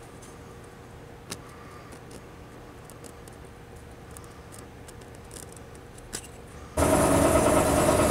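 Faint clicks and scratches of a fingernail picking flaking spray paint off a Singer Model 20 handwheel. Near the end a loud, steady machine noise cuts in suddenly and runs on.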